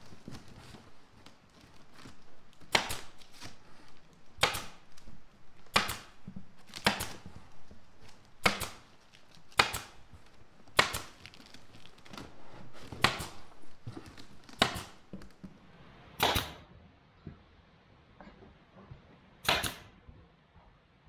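Pneumatic staple gun firing about a dozen single shots as cardboard is stapled to the wooden frame of a chicken tractor, roughly one shot every second or so, with a pause of a few seconds near the end. Quieter handling noise between the shots.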